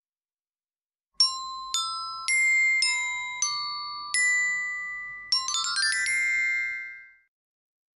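Short glockenspiel jingle. Six single ringing notes about half a second apart, then a quick run of rising notes about five seconds in that rings on and fades away.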